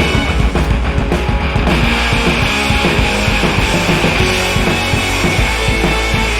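Loud background rock music with guitar and drums and a steady beat.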